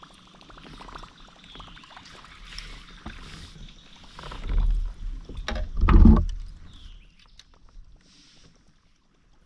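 Kayak on the water: water splashing and sloshing with small knocks against the hull, building to a loud low thump about six seconds in.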